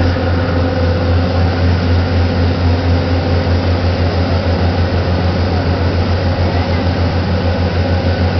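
Glass-bottom tour boat's engine running steadily under way: a loud, low drone with a regular throb.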